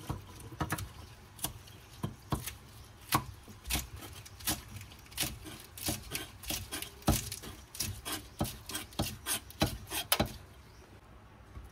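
Kitchen knife chopping fresh green herbs on a thick round wooden chopping board: a run of sharp, uneven knocks, about two to three a second, that stops near the end.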